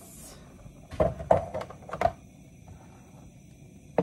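Plastic food packaging handled on a kitchen counter: a brief crinkle, then a quick run of four or so knocks and clacks about a second in, and one sharp click near the end.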